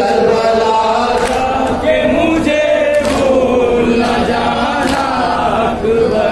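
A man chanting a noha, a Muharram lament, into a microphone, in long held melodic lines.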